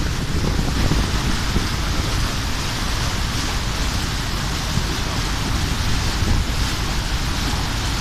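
Wind buffeting the microphone in an irregular low rumble over a steady rushing hiss of wind and water.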